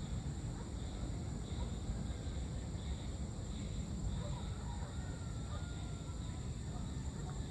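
Outdoor evening ambience: a steady low rumble, with insects droning and chirping in a high, faintly pulsing band.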